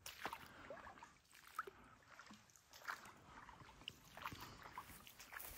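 Faint, irregular footsteps squelching and splashing through soggy, waterlogged ground.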